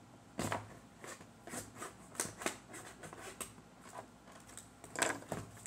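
Cardboard-and-plastic knife package being handled and cut open: an irregular run of clicks and crackles, loudest about half a second in and again near the end.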